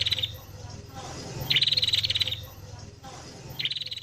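Sooty-headed bulbul (kutilang) song mixed with prenjak (bar-winged prinia) calls. Rapid trilled bursts of about a second recur roughly every two seconds: one ends as the clip opens, one comes about one and a half seconds in, and another starts near the end. A low steady hum runs underneath.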